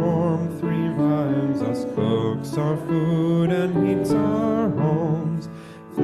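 A hymn sung to piano accompaniment: a wavering sung melody over held piano notes, with a short pause near the end between lines.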